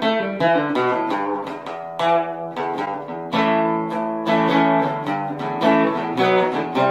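Intro music: acoustic guitar plucked and strummed, chords struck every second or so and left to ring.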